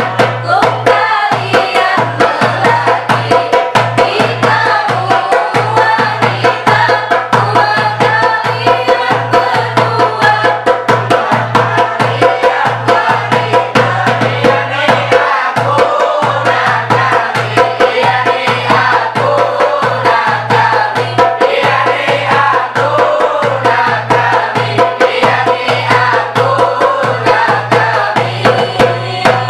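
A group of voices singing a chant in unison, accompanied by a darbuka (goblet drum) beaten in a quick, steady rhythm.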